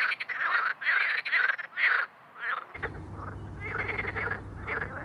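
Frogs calling in a spring mating chorus. A close frog gives loud rasping croaks, about five in quick succession. About two and a half seconds in, this gives way to a softer, busier chorus of frogs.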